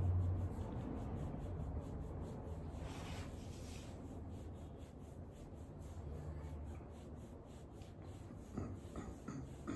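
Hands rubbing and stroking a pit bull's short fur, a steady soft rustle with a brief louder rub about three seconds in and a few short sounds near the end.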